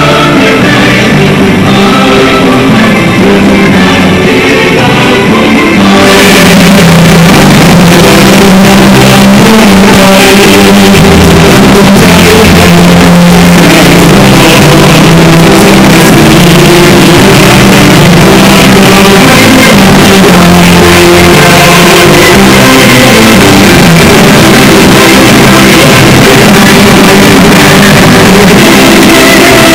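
Loud music with a held melody; it becomes fuller and brighter about six seconds in.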